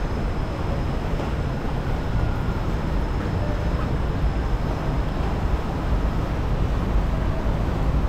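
Steady low rumble and hiss on an Intamin river rapids ride, as the round raft drifts along the water channel: flowing water with some wind on the microphone, and no distinct knocks or splashes.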